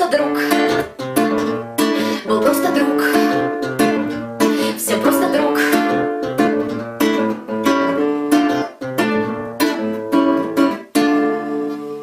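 Classical guitar strummed in a steady rhythm of chords with no singing, ending on a last chord about eleven seconds in that is left to ring and fade.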